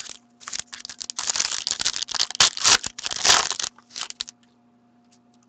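Foil trading-card pack being torn open and crinkled in the hands: a dense crackling rustle that stops about four seconds in.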